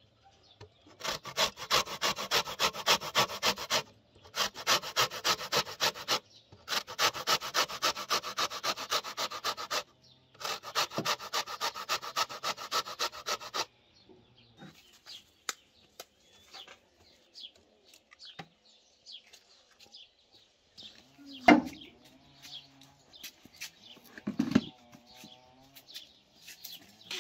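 Orange peel being grated on a metal box grater: rapid rasping strokes, about five a second, in four runs of a few seconds each with short pauses between. About halfway through the grating stops, leaving faint scattered clicks and one sharp knock.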